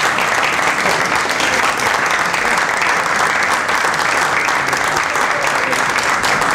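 A small group of people applauding steadily by hand after a punchline, the clapping holding at a steady level throughout.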